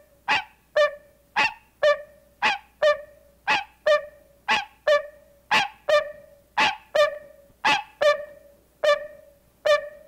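A hybrid green × barking treefrog and a barking treefrog calling in alternation: short, honking barks, about two a second, the hybrid's voice higher-pitched than the barking treefrog's.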